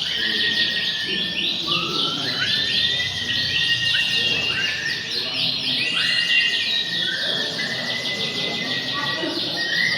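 Several domestic canaries singing at once: overlapping fast, rolling trills mixed with long, level whistled notes, going on without a break.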